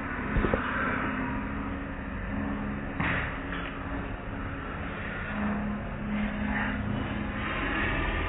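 Automatic car wash heard from inside the car: water spraying and cloth strips washing over the windshield, over a steady low hum. A few thuds come about half a second in, and a sharp knock about three seconds in.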